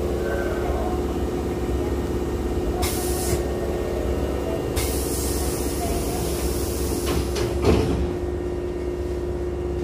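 Electric commuter train's sliding passenger doors closing: a long hiss of air from about five seconds in, then the door leaves knocking shut with a thump near eight seconds, over the steady hum of the stopped train.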